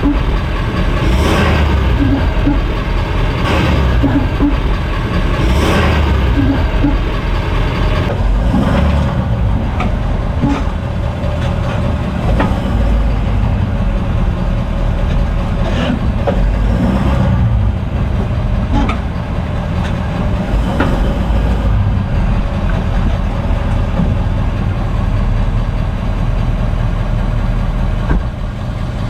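2018 Ford F-250 Super Duty drivetrain clunking at the driveshaft slip yoke: a string of irregular thunks every second or few over the low, steady running noise of the truck. The owner suspects the slip-yoke splines.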